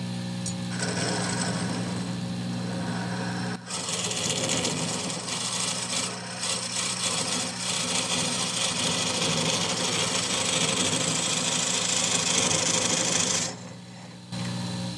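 Small benchtop lathe running with a steady motor hum while a cutting tool turns down a spinning wooden cue shaft to form a new tenon: a loud, continuous rasping cut from about a second in, with a short break around four seconds in. The cutting stops near the end, leaving the motor running alone until it shuts off.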